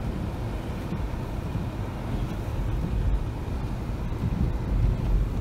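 Car driving along a snow-covered track, heard from inside the cabin: a steady low engine and tyre noise with no letup.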